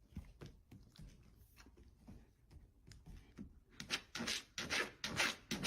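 Faint scratching and rubbing noises, scattered at first, then a quicker irregular run of short scratchy sounds from about four seconds in.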